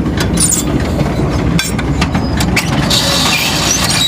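Tractor and small square baler running in the hay, the baler's mechanism clattering with repeated knocks. A high-pitched whine joins about three seconds in.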